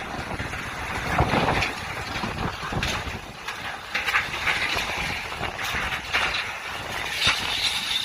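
Typhoon-strength wind blowing in gusts that swell and ease, buffeting the microphone.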